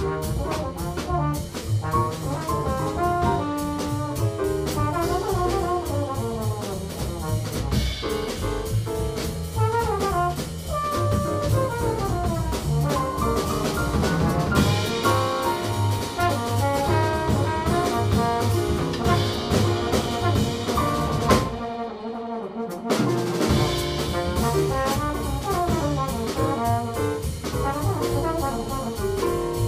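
Live jazz: a trombone plays a melodic solo line over piano, double bass and drum kit. About three quarters of the way through, the bass and drums drop out for about a second before the band comes back in.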